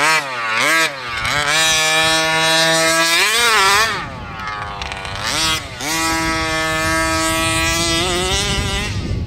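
Small two-stroke gas engine of a 1/5-scale HPI Baja RC buggy running hard. It makes a couple of quick throttle blips at first, then holds at steady high revs. The revs drop and climb again twice through the middle and fall off near the end.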